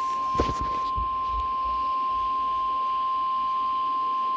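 NOAA Weather Radio warning alarm tone: one steady, unbroken 1050 Hz tone announcing a warning, heard over a weather radio receiver. A few crackles of static come in the first second.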